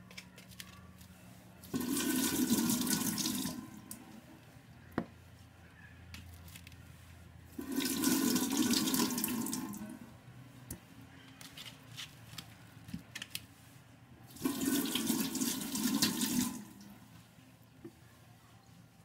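Kitchen tap water running in three bursts of about two seconds each, with a few light knocks between them.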